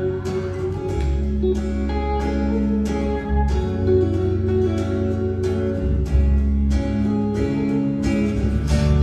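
Live band playing an instrumental passage with no singing: strummed acoustic guitar over held bass notes, on a steady beat of about two strokes a second.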